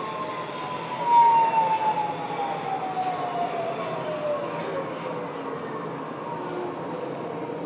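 Budapest Metro line M4 train, heard from inside the car, braking into a station. A whine falls steadily in pitch as the train slows, over the running noise on the rails and a steady high tone. It is a little louder about a second in.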